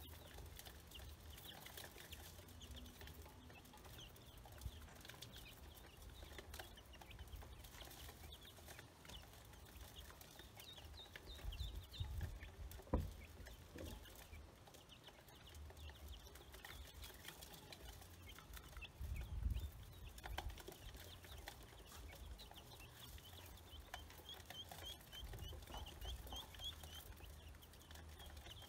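Baby chicks and ducklings peeping: many short, high peeps in quick runs, fairly faint. A low rumble swells twice, and one sharp knock comes about halfway through.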